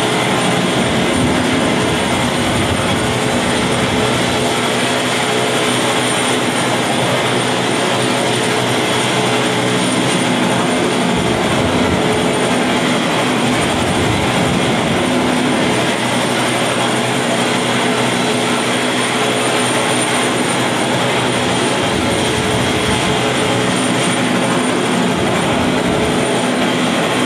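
Steady aircraft engine roar, unchanging in level throughout, with a faint steady hum in it.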